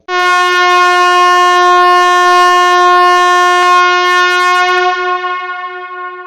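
Talking toy robot's electronic sound effect: one long, steady, buzzy tone at a single pitch that starts suddenly, holds for about four seconds, then fades away near the end.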